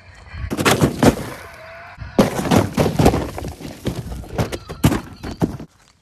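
Footsteps in sneakers scuffing and crunching over gritty rock, in two irregular runs of sharp steps.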